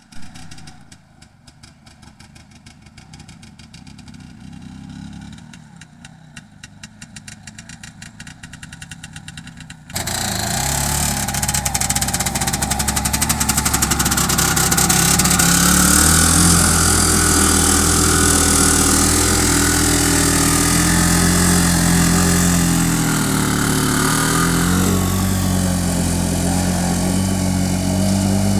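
Engine of a homemade karakat all-terrain vehicle running at a low, even idle. About ten seconds in it abruptly gets much louder and runs hard, its pitch wavering up and down, as when driving under load.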